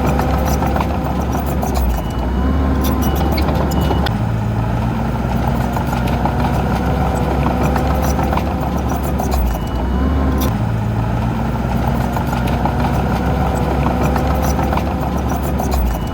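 Heavy diesel earthmoving machinery running steadily, with frequent short clicks and clanks over the engine.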